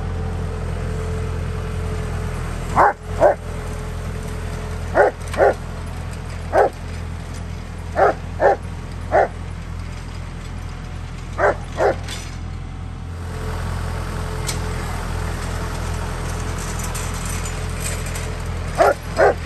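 A dog barks about a dozen times, mostly in quick pairs, with a pause of several seconds after the middle. Beneath the barks a tractor engine runs steadily.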